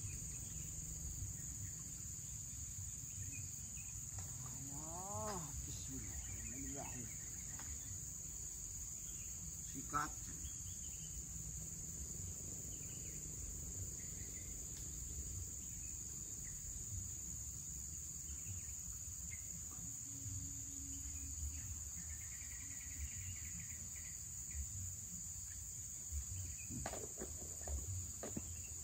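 Insects droning in one steady high-pitched whine without a break, with a single sharp click about ten seconds in.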